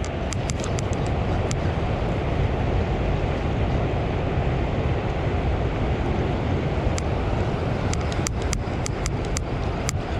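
Steady roar of river water released through a dam's open floodgates, churning below the spillway. Scattered sharp clicks cut through it, a few in the first second or so and a cluster near the end.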